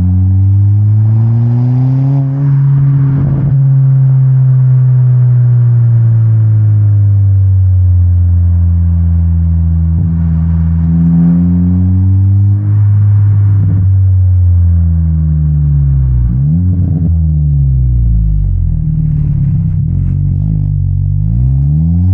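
2025 Honda Civic Si's turbocharged 1.5-litre four-cylinder running through a Megan Racing N1 exhaust with the silencer removed, driven hard. The engine pitch climbs and falls several times as the car accelerates, shifts and slows.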